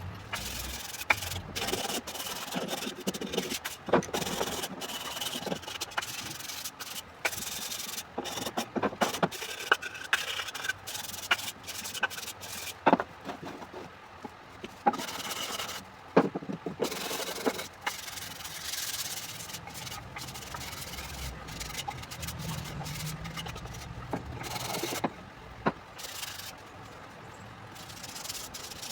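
Hand work on a piece of wood: rubbing and scraping, with many scattered knocks and clicks as pieces and tools are handled.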